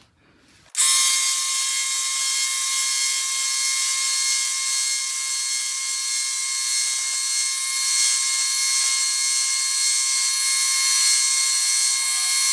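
Belt sander running steadily with a fine belt, grinding a point onto the steel shaft of an old tire repair tool to make a punch. The steady, high-pitched grinding starts suddenly about a second in.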